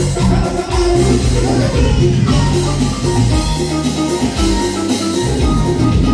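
Live cumbia band playing, with bass, guitar, drums and percussion and some singing.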